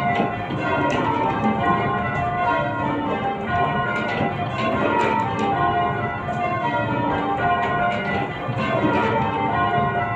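A ring of eight church bells being rung full circle in change ringing, one bell striking after another in an unbroken, even sequence, their tones overlapping and hanging on.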